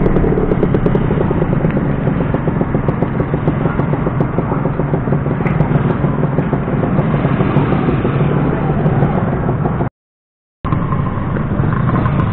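Motorcycle engine running steadily with a rapid pulsing note. The sound cuts out completely for under a second about ten seconds in, then resumes.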